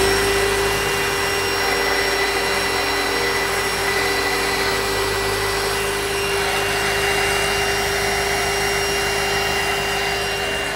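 Shop vacuum running with a steady whine, its hose drawing aluminium chips from the cut, over the belt-driven Harbor Freight mini mill's spindle and end mill engraving aluminium.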